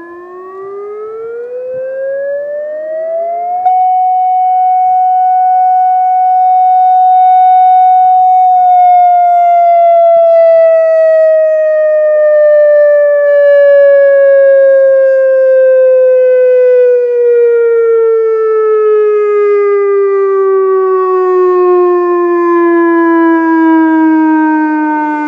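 Federal Signal EOWS 115 outdoor warning siren sounding a test. It winds up in pitch over the first few seconds, holds one steady tone with a clear jump in loudness as it reaches full pitch, then winds down slowly and evenly in pitch for the rest of the time.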